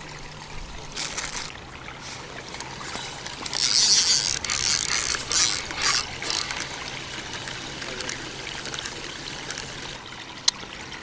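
River water trickling and running steadily, under a faint low steady hum. A loud hissing rustle comes in about a third of the way through and lasts about three seconds, with shorter bursts of the same noise before and after it, and there is a single sharp click near the end.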